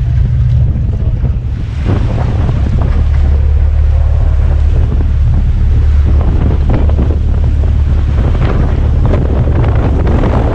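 A fishing boat running at speed: a steady low engine and hull rumble with wind buffeting the microphone and spray splashing along the side. It grows louder about two seconds in.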